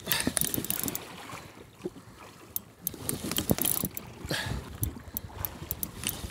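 Fishing reel being cranked with a hooked fish on, its gears and clicker making runs of rapid clicks while the fish is wound up from deep water.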